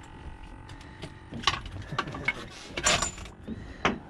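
Handling noise: a scatter of sharp knocks and scraping rubs, thickest from about one and a half to four seconds in, over a low steady rumble.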